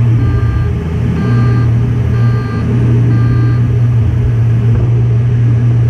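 Aircraft cockpit noise in flight: a steady low hum, with a cockpit alert beeping about once a second, four times, then stopping about three and a half seconds in.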